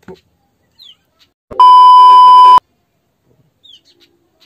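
A loud, steady, high-pitched electronic bleep, like a censor beep, lasting about a second and cutting off sharply. It starts a little over a third of the way in.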